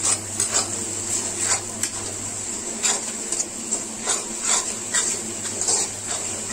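Steel spatula scraping and knocking against a steel kadai as fried onions and spice powders are stirred, in quick, irregular strokes.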